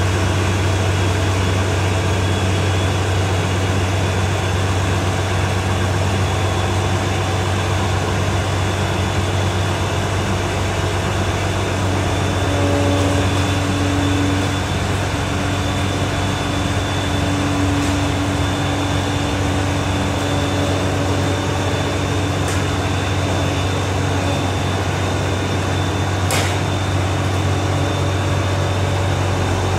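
An engine idling steadily with an even low hum and a faint high whine; a couple of faint clicks near the end.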